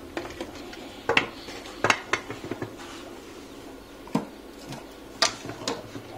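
Tools and equipment, a soldering station among them, being handled and set down on a wooden tabletop: a series of sharp clicks and knocks at uneven intervals, loudest about one and two seconds in.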